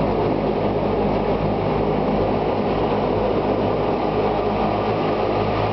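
The twin turboprop engines and propellers of a de Havilland Canada Dash 8 running, heard from inside the cockpit: a loud, steady, even drone with a low hum that holds the same pitch throughout.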